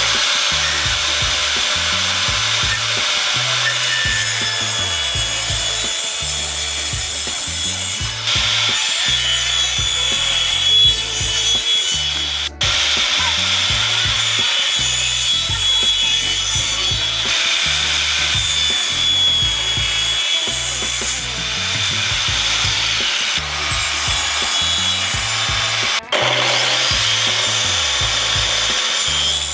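Table saw running and cutting through wood, with a steady high whine from the spinning blade over the rasp of the cut. The sound breaks off sharply for an instant twice.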